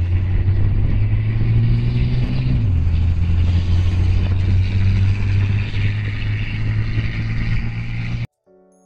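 Engine and tyre noise heard inside a moving car's cabin: a steady low drone with road hiss, whose pitch steps down about a third of the way in. It cuts off abruptly near the end.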